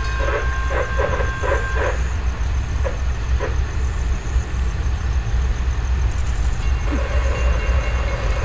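Railroad grade-crossing bell dinging in quick, even strokes, about two and a half a second, for the first two seconds, over a steady low rumble from a CSX freight train. Near the end a steady pitched tone comes in.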